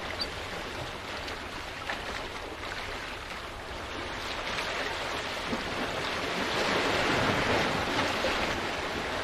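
Sea surf washing and splashing against the rocks of a jetty, with some wind on the microphone; the wash swells louder about two-thirds of the way through.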